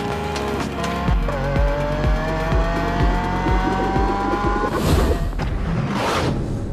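Lamborghini Sián's V12 accelerating, its pitch rising steadily for about three seconds, over music with a steady beat. Near the end come two loud whooshes.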